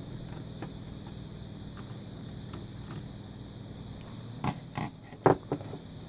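Screwdriver working screws out of a laptop motherboard: faint creaking of the screws turning, then a few sharp clicks near the end.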